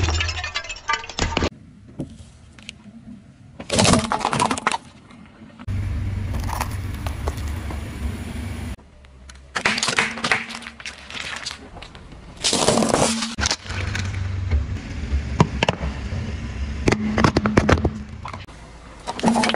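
A series of cracks and crunches as objects are crushed under a car's tyres. Between them comes a low rumble of the tyre rolling over pavement.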